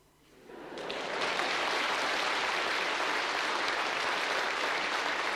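A large audience applauding, swelling from silence over the first second into steady, dense clapping.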